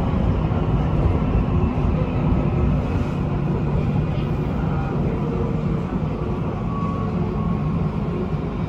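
Siemens Inspiro metro train running along the track, heard from inside at the front: a steady low rumble of wheels on rail, with a faint steady tone coming in during the second half.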